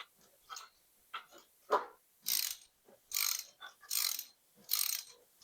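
Socket ratchet wrench ratcheting in short back-strokes, about one a second, as a bolt is turned on the tractor.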